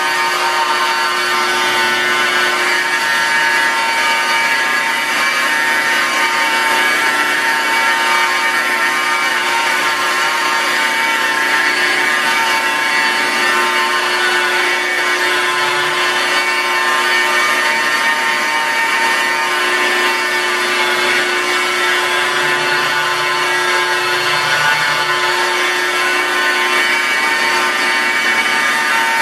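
Corded rotary polisher running steadily at about 1500 to 2000 RPM, its foam composite pad buffing rubbing compound into car paint: an even motor whine with many steady tones.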